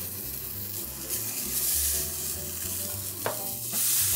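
Diced bell pepper and zucchini sizzling in vegetable oil in a frying pan, with a steady hiss that swells about a second in and again near the end. A single sharp click comes a little past three seconds.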